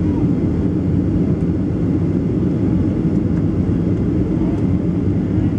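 Steady low rumble inside the passenger cabin of a Boeing 737-300 on final approach: its CFM56 turbofan engines and the rush of air past the fuselage.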